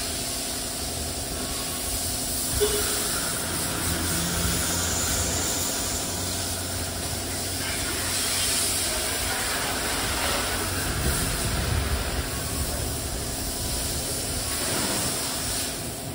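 Pressure-washer jet spraying water against a car's body: a steady hiss over the steady hum of the washer's pump.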